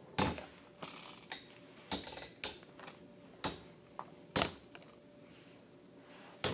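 Two metal-wheeled Beyblade spinning tops, Thermal Pisces and Lightning L-Drago, clashing in a plastic stadium: about ten sharp, irregular clacks, roughly half a second to a second apart, with a longer gap near the end.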